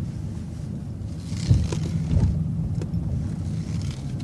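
City transit bus engine running with a low rumble inside the bus as it turns, with a few light knocks and rattles from the body.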